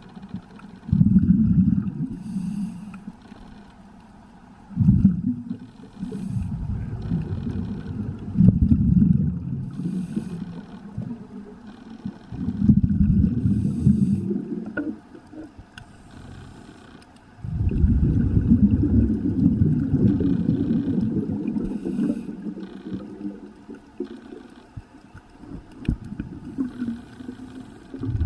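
Scuba diver breathing through a regulator underwater, heard through a sealed camera housing: irregular bursts of exhaled bubbles rumble for one to several seconds, with short hisses between them.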